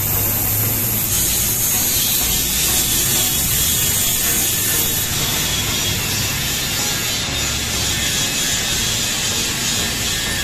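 Senfeng fiber laser cutting 16 mm steel plate: a steady, loud hiss of the assist-gas jet and the cut, over a low machine hum. The hiss shifts in tone about a second in and again about five seconds in.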